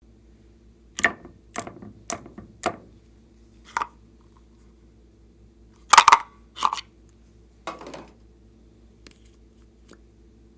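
A series of short, sharp cracks and clicks over a low steady hum: four quick ones close together, a lone one, then the loudest pair about six seconds in and a last, softer crackle.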